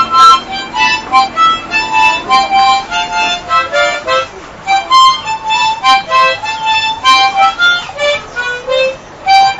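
Background film music: a quick melody of short, separate notes.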